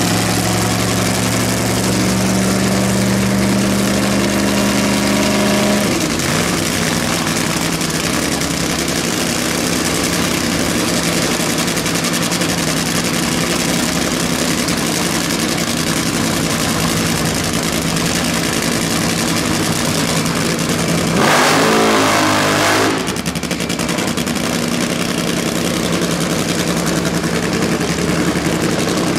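Supercharged nitromethane-burning V8 engines of Top Fuel Funny Cars running with the bodies raised, warming up before a run. A steady idle note for the first six seconds changes to a rougher, harsher sound, and a short, louder burst of throttle comes about 21 seconds in.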